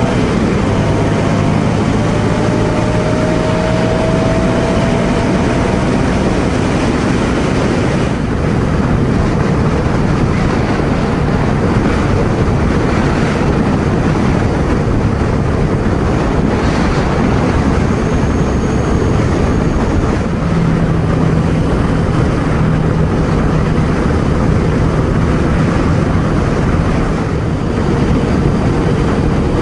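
Ducati Scrambler Sixty2's 399 cc air-cooled V-twin running at a steady cruise, a new engine being run in, under heavy wind rush and road noise on the rider's helmet microphone. The sound changes slightly about eight seconds in, where the footage is cut.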